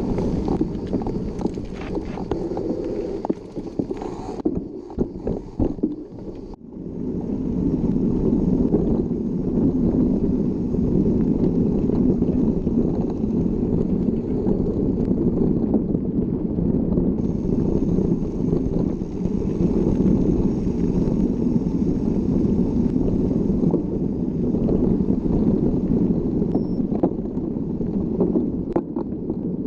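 Steady wind rush on the microphone of a camera riding along on a mountain bike, mixed with the bike's rolling noise over the trail. About five seconds in it dips and breaks up for a couple of seconds, with a few knocks, then comes back steady.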